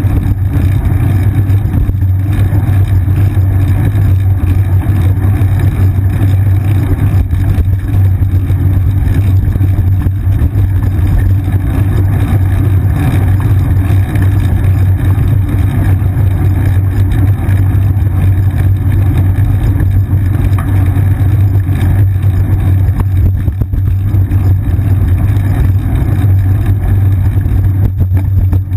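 Steady low rumble of a bicycle rolling along an asphalt path, picked up through a seat-mounted GoPro Hero 2 that shakes with the bike.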